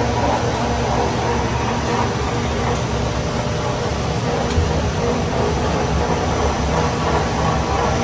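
Industrial machinery running: a steady mechanical drone with a low rumble and a few faint constant tones.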